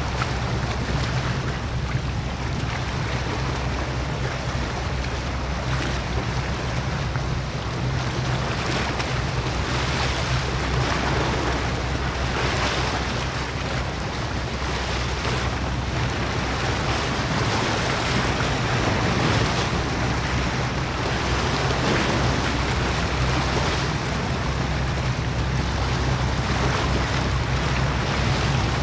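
Steady wash of wind on the microphone and choppy water, over a low, even drone of ship engines.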